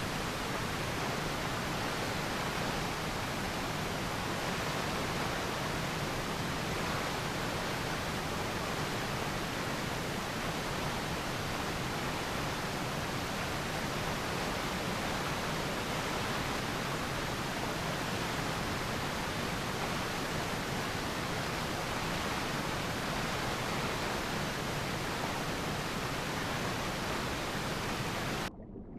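A steady, even hiss like static that spreads across all pitches and does not change, cutting off abruptly just before the end.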